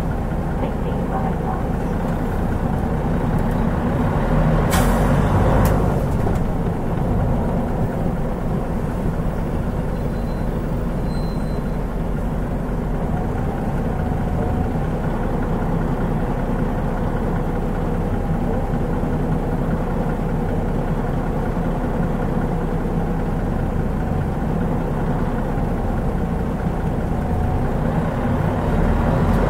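Mitsubishi Fuso Aerostar KL-MP37JK city bus running on its turbocharged 6M70 straight-six diesel, a steady drone. A short hiss of compressed air is released about five seconds in.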